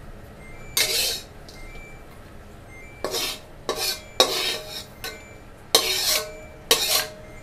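Metal spatula scraping and scooping along a dry metal wok, about six short scrapes with a faint ring from the pan, as dry-roasted Chinese herbs are scooped out.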